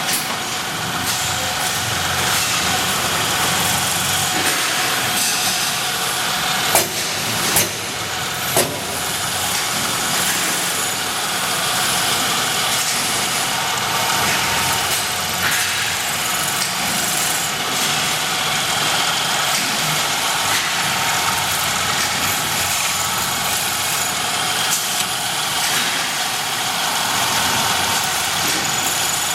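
Multi-head CNC drilling machine for steel running steadily, a constant mechanical noise with faint steady tones. About a quarter of the way in come three sharp knocks.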